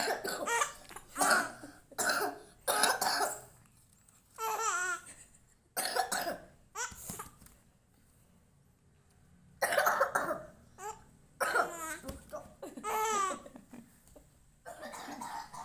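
A person coughing repeatedly in short bursts, broken by two bouts of laughter.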